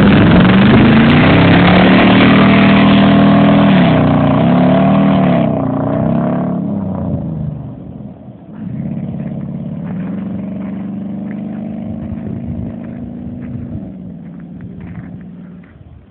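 Chevy half-ton pickup engine through a true dual exhaust with catalytic converters, accelerating hard on a drive-by with its pitch climbing and shifting. It fades as the truck moves off, then carries on as a quieter, steadier engine note from about halfway, dying away near the end.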